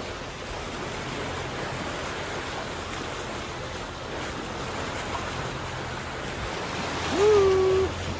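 Steady rush of sea water churned along a moving boat's hull, with wind on the microphone. About seven seconds in, a person lets out a long held exclamation that rises and then stays level, the loudest sound here.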